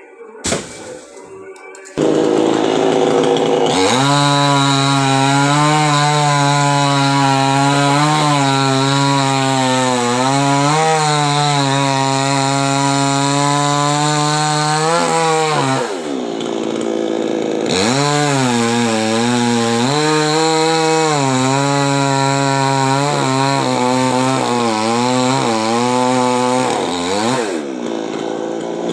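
Chainsaw engine running hard, its pitch sagging and recovering as it works through the cut. About halfway through it winds down and drops to a lower note, then revs back up and keeps cutting.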